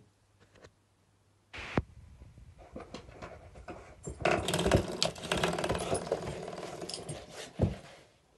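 Spring door stop being batted by a puppy's paw, springing back with a rattling boing. One short twang comes about one and a half seconds in, then a longer buzzing rattle from about four seconds in, with a thump near the end.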